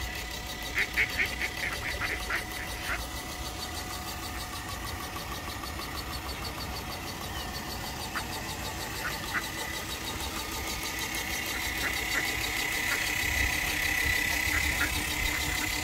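A small motor running steadily with a thin whine and a fast, even pulse. About a second in comes a quick run of short high chirps, and a few more follow later.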